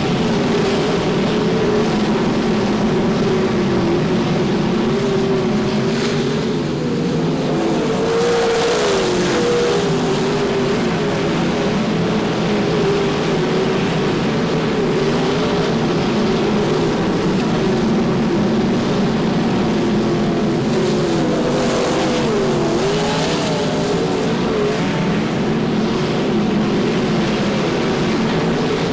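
Winged sprintcars' V8 engines running on a dirt oval, a loud steady drone whose pitch rises and falls slightly a couple of times as cars pass.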